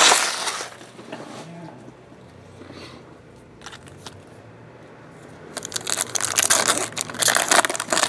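Trading-card pack wrappers crinkling and tearing as packs are opened, loud at the start and fading within the first second. A quieter stretch with a few small clicks follows, then more loud crinkling and tearing from about five and a half seconds in.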